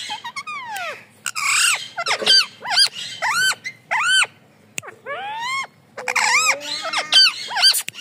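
Rose-ringed parakeet screeching: a run of short, shrill calls that each rise and then fall in pitch, about two a second, with a brief pause a little past the middle.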